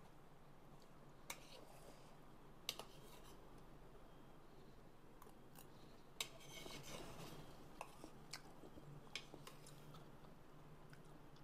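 Faint clicks and scrapes of a metal spoon against an enamel bowl as it cuts into and lifts a fried gohyong roll from broth, with a short soft rustle about six seconds in.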